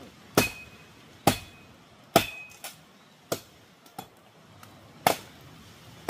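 Repeated sharp chopping blows with a blade, about one a second, a few of them with a brief metallic ring.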